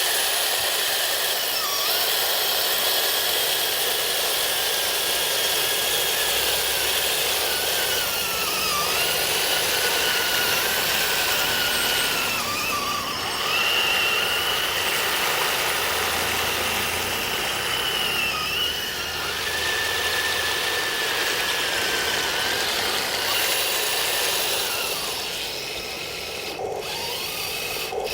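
Radio-controlled M26 tank model with metal tracks running: the whine of its small electric drive motors and gearboxes glides up and down in pitch as the speed changes, over a steady grinding noise.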